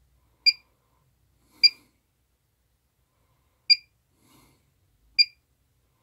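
Electronic key-press beeps from a bench test instrument's front panel: four short, high beeps spaced irregularly a second or two apart as buttons are pressed.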